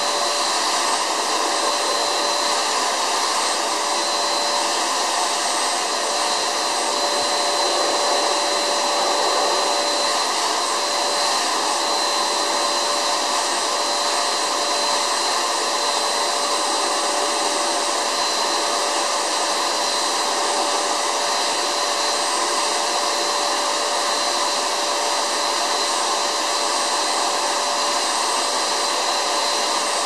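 White vacuum cleaner running steadily, a steady whine over the rush of air as its nozzle sucks at sheets and comforters.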